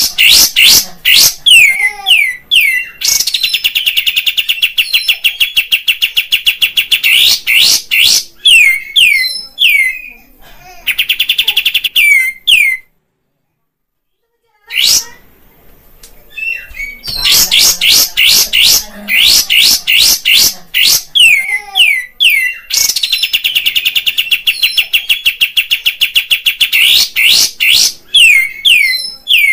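Kapas tembak bulbul singing loudly: a run of quick down-slurred whistled notes, then a long, very rapid chattering trill. The song breaks off for about two seconds midway, then the same pattern of slurred notes and trill repeats.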